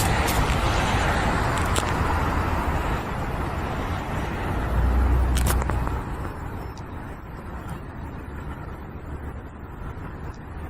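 Road traffic: a vehicle swishes past at the start and fades over about three seconds, then a low rumble of passing traffic.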